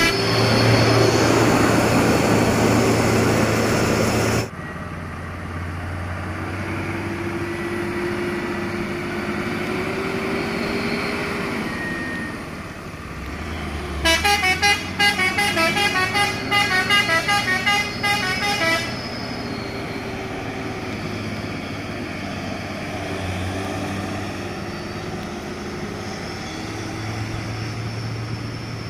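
Hino 500 cargo truck's diesel engine running, loud and close for the first few seconds, then at a distance, its pitch rising and falling as it works along the road. About halfway through, a multi-tone horn plays a quick chopped tune of changing notes for about five seconds.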